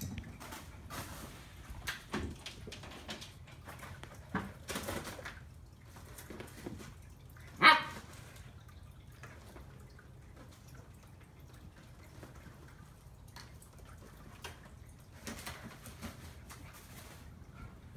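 Two Siberian Huskies, a puppy and an adult, playing: scattered light scuffles and paw thumps, with one loud, short bark about eight seconds in.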